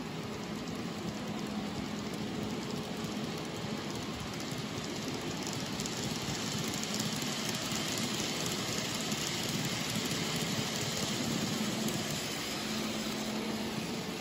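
N-scale model freight train rolling past: a steady, fine clatter of many small wheels on the track, with a low steady hum underneath, a little louder through the middle.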